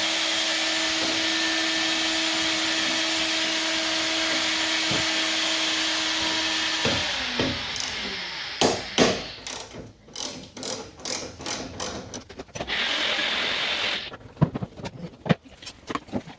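A small electric motor whirring steadily with a constant whine for about seven seconds, then fading out. It is followed by a run of sharp knocks and clicks as car body panel parts are handled and worked loose, and the motor comes back briefly near the end.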